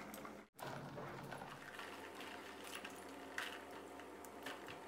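Faint water sloshing in a plastic bowl, with a few light clicks as metal tongs move blanched neem shoots through the cold water.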